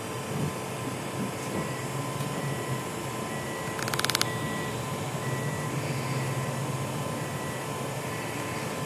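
Steady low engine hum and cabin noise inside a slowly moving vehicle, with a faint short beep repeating about once a second. About four seconds in comes a brief burst of rapid clicks.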